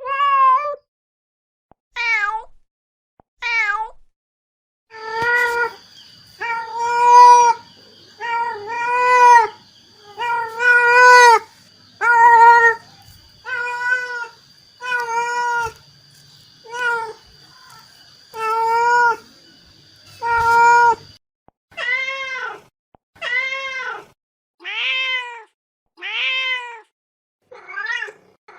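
Mother cat meowing over and over to call her kittens: about twenty loud, separate meows, each rising and falling in pitch, one every second or two.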